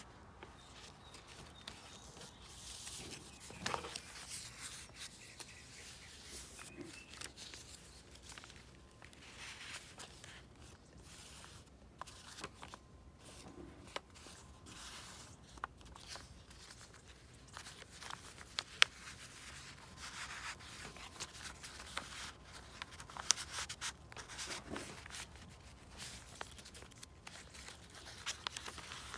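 Paper rustling and sliding as the pages of a handmade junk journal are handled, with tucked cards pulled out and pressed back. Small clicks and taps are scattered through it.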